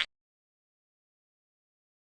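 Dead silence, right after a short sound cuts off at the very start.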